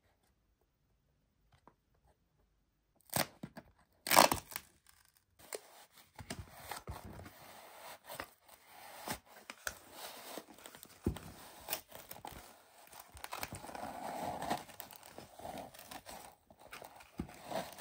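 Cardboard toy box torn open, with two sharp rips a few seconds in, then continuous rustling and scraping as a stuffed plush toy's fabric rubs against the cardboard while it is worked out of the box.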